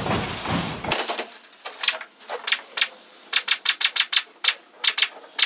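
Chicken wire rattling as it is handled for about the first second, then a rapid run of sharp metallic snips, about three to four a second, as hand snips cut through the chicken wire.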